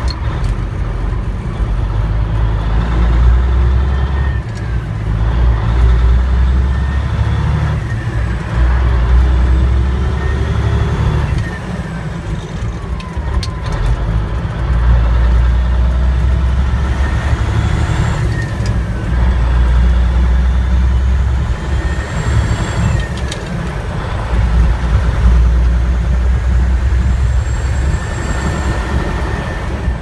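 Peterbilt 359's diesel engine heard from inside the cab while driving, pulling hard and then dropping off every few seconds as the driver works through the gears.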